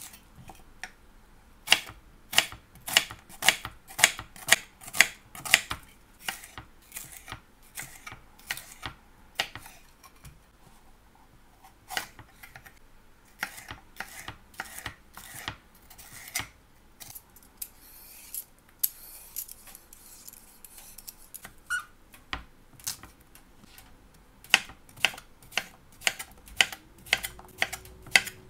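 Kitchen knife chopping vegetables on a wooden cutting board: runs of sharp knocks as the blade strikes the board, about two a second, broken by quieter pauses.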